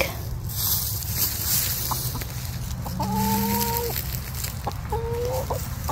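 Chickens clucking, with two drawn-out calls held on one pitch in the second half.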